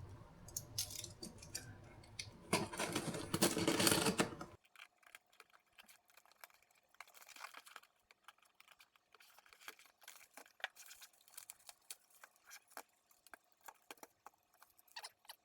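Faint handling noise as washing-machine circuit boards are picked up and compared. There is rustling for the first few seconds, loudest around three seconds in, then it drops off suddenly to scattered small clicks and taps.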